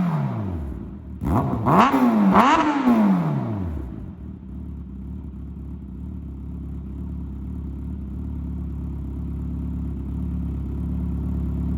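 Kawasaki Z900RS inline-four engine through a Black Widow aftermarket exhaust. A rev falls away at the start, and about a second in a quick series of throttle blips rises and falls. From about four seconds it settles into a steady idle.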